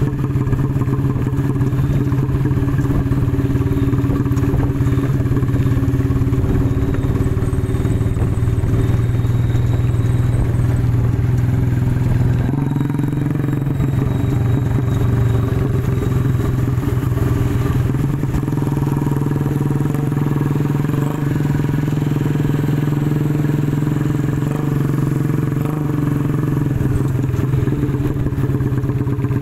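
Motorcycle engine running steadily on the move, with a brief change in the engine note about twelve seconds in.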